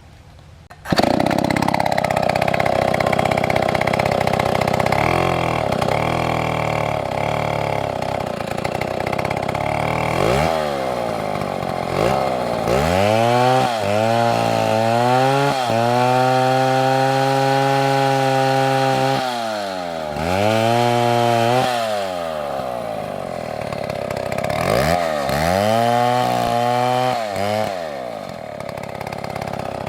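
Two-stroke chainsaw running, cutting into wood. It comes in abruptly about a second in, and its pitch rises to full throttle and falls back several times, held high for a few seconds around the middle.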